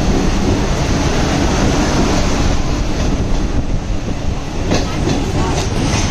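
Vande Bharat Express electric multiple unit passing at close range: steady, loud rumble of its wheels on the rails, with a few sharp clacks near the end as the last car goes by.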